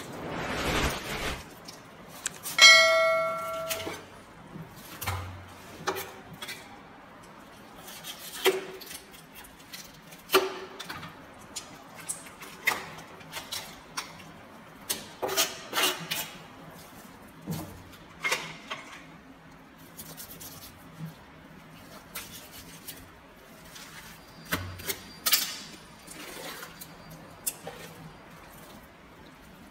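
Knife cutting up a large fish on a plastic cutting board: irregular knocks and short scrapes of the blade through flesh and bone, with one loud ringing clang about three seconds in.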